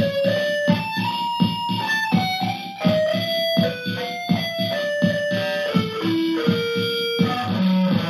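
Electric guitar playing a single-note jazz melody line, some notes held, over a steady pulse of low hits about two a second.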